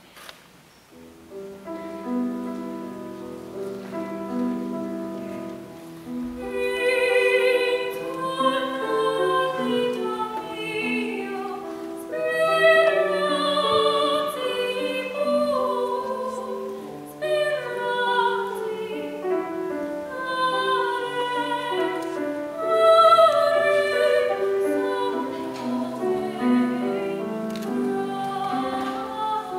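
Grand piano plays a short introduction, then a female soprano enters about six seconds in, singing in classical operatic style with a wide vibrato over the piano accompaniment.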